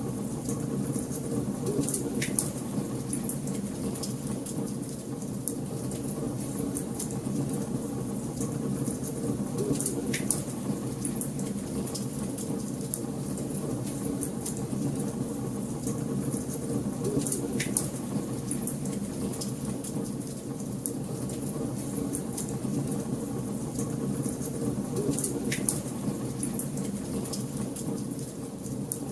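Wood fire burning in a fireplace: a steady low rumble of flames with constant small crackles and four louder snaps spaced several seconds apart.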